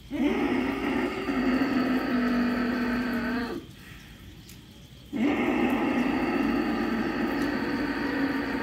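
Ujjayi pranayama breathing: two long, throaty breaths drawn through a constricted throat, each lasting about three and a half seconds with a pause between. Each carries a steady, hum-like drone under the rush of air.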